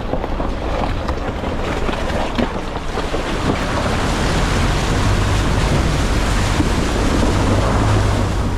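Nissan Navara D40 ute driving, its engine drone under heavy wind and tyre noise, getting louder about halfway through.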